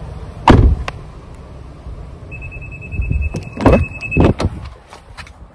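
Thumps and knocks of someone getting out of a car and handling its door: a heavy thump about half a second in, then a cluster of knocks about three to four seconds in, with a steady high electronic tone sounding for about two seconds.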